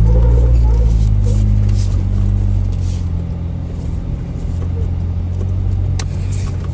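Jeep engine running at low revs, a steady low drone that eases off slightly after about two seconds, with a single sharp click about six seconds in.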